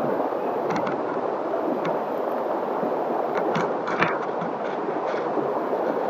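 Shallow rocky stream running over stones, a steady rush and gurgle of water close by, with a few light knocks, the clearest about four seconds in.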